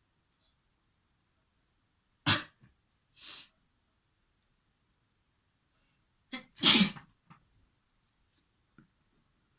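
A person sneezing twice: a sharp sneeze a couple of seconds in and a louder one about two-thirds of the way through, each followed by softer breathy sounds.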